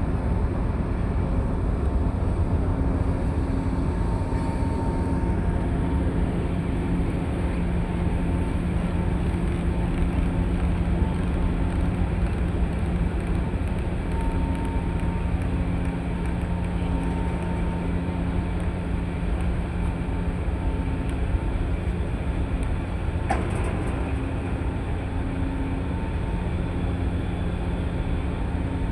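Ship's engine running steadily during berthing: a continuous low rumble with a steady hum. A brief click about two-thirds of the way through.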